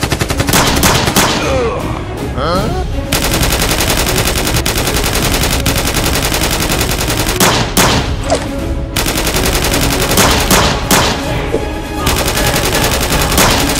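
Rapid automatic machine-gun fire sound effects over background music, in long sustained bursts with a brief break about midway.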